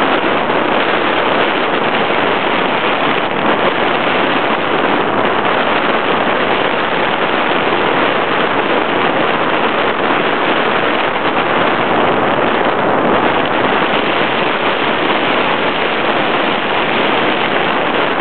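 Steady rush of wind on the microphone from a hang glider's airspeed in gliding flight.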